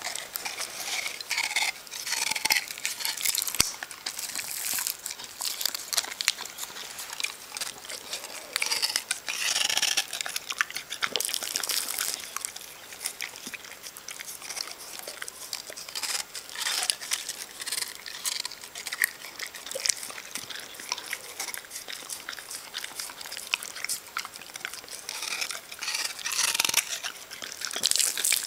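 Staffordshire Bull Terrier biting and chewing on a frozen icypole, crunching the ice in irregular bouts with short pauses.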